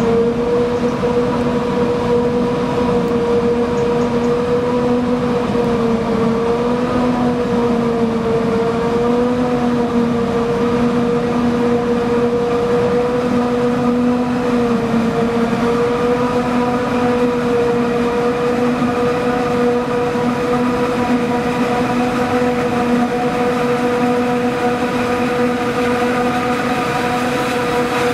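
Claas Jaguar 960 self-propelled forage harvester chopping standing maize, its engine and chopper running under load with a steady whine over a rough drone.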